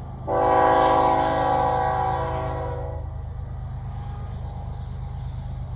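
Train horn sounding one long blast of several tones together for about three seconds, over the steady low rumble of a running train that carries on after the horn stops.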